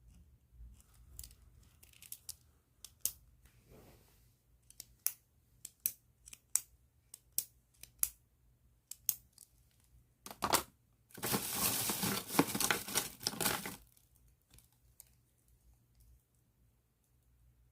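Plastic bag being handled: a string of sharp separate crackles, then about two and a half seconds of dense continuous crinkling and rustling.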